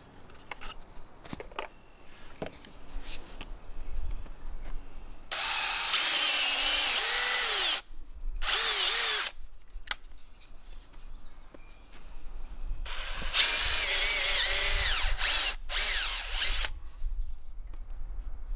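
DeWalt cordless drill boring screw holes through a short wooden block, in three runs: one of about two and a half seconds from about five seconds in, a short one right after, and a longer one from about thirteen seconds in. The motor's whine sags and recovers in pitch as the bit bites into the wood, with small handling clicks between runs.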